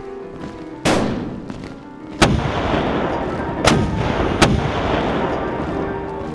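Four heavy gunfire blasts, the first about a second in and the last two close together, each trailing off in a long rumbling echo, over quiet background music.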